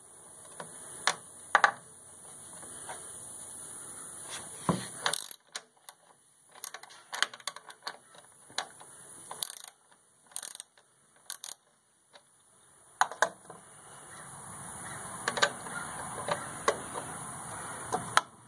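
Hand ratchet and wrench loosening the thermostat housing bolts on a John Deere 2155 tractor engine: scattered metal clicks and taps. A soft rushing noise swells and fades twice behind the clicks.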